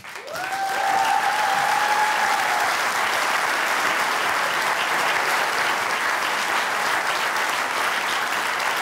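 Theatre audience applauding, swelling over the first second and then steady, with one long high note from someone in the crowd over the first few seconds.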